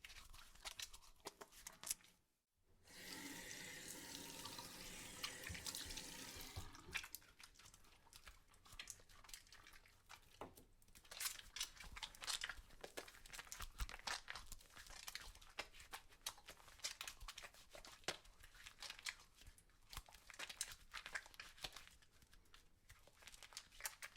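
Hands being washed at a sink. Tap water runs for about four seconds, starting near the three-second mark, then wet soapy hands rub and lather with many small crackling rubs.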